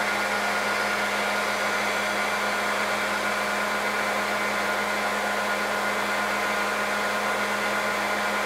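Belt grinder running steadily with an even hum and hiss, grinding the Scandi bevel on a hardened knife blade in slow, light passes that keep the edge from burning.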